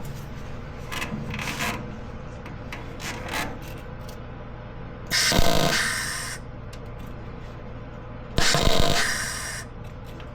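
MIG welder laying two short tack welds, each a loud crackling sizzle of about a second, about five and eight and a half seconds in, after a few light knocks of metal being handled. The shielding gas is running out.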